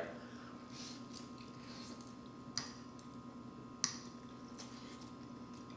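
Quiet eating sounds: faint soft chewing and two sharp clicks about a second apart, typical of a fork or utensil against a plate, over a faint steady hum.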